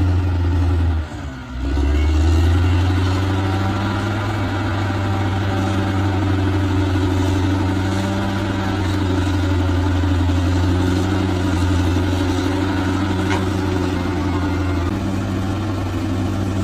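Bulldozer's diesel engine running steadily, with a brief dip in level about a second in.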